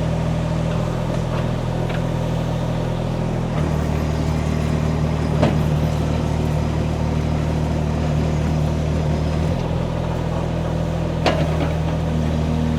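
Mini excavator's Kubota D1105 three-cylinder diesel running steadily while the machine is worked; its note shifts about three and a half seconds in and again near nine and a half seconds. Two brief knocks come through, around five and a half seconds and eleven seconds.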